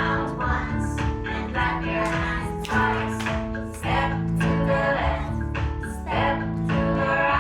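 Song playing: singing voices over an instrumental backing with a steady beat.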